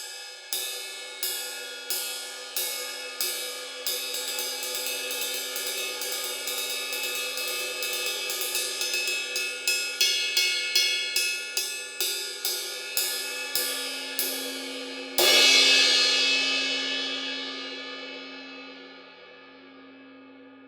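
20-inch Sabian AA Medium Ride cymbal struck over and over, at first in an even pulse of about one and a half strokes a second, then faster and denser with shimmering overlapping ring. About fifteen seconds in comes one much louder hit, which is left to ring and slowly fade.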